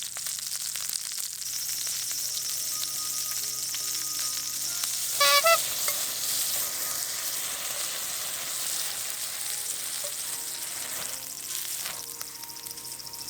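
Meat sizzling on an iron griddle, a steady frying hiss. About five seconds in, a short, bright pitched ding sounds twice in quick succession, louder than the sizzle.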